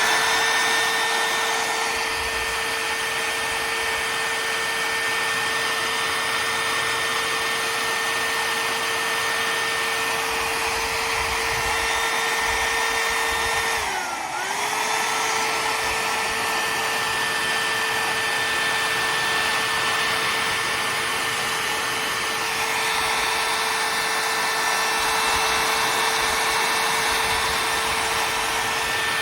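Beautimeter 3-in-1 hot air styler, a blow-dryer brush, running: a steady motor whine over a rush of air, spinning up at the very start. About halfway through, its pitch dips briefly and comes back up.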